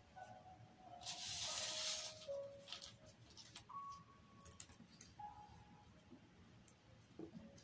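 Crepe paper and wire rustling as they are handled, loudest in a burst of crinkling about a second in, then scattered light clicks and crinkles. Faint soft musical notes sound in the background.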